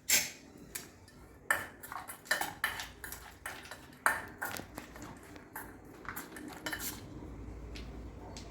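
A spoon clinking and tapping against dishes in quick, irregular strikes, stopping about a second before the end.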